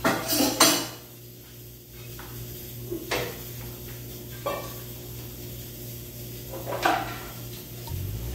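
Dishes and pots knocking and clinking as they are handled: two knocks close together at the start, then three more single ones a second or two apart, each with a short ring. A low steady hum runs underneath.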